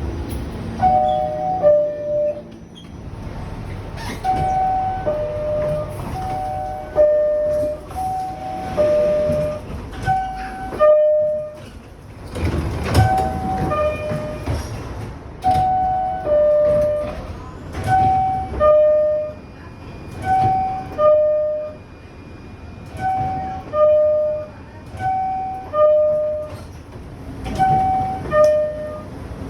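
High-pitched two-tone door chime of a New York City subway car, a higher note stepping down to a lower one, sounding over and over about every two seconds: the warning that the doors are closing. Train rumble and station noise run underneath.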